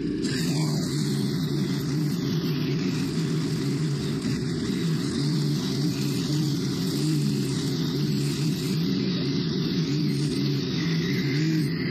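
Stihl FS90R string trimmer's small four-stroke 4-MIX engine running under load as the spinning line cuts through tall, thick grass. Its pitch wavers up and down with each swing.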